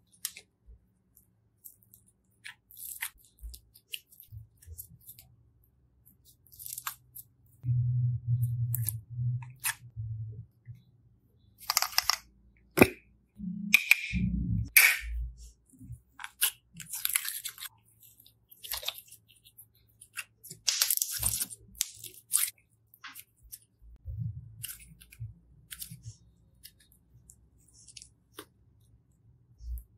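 Slime being squished, stretched and pressed by hand: irregular crackling clicks and sticky pops. The handling gets denser and louder about eight seconds in and again between twelve and fifteen seconds.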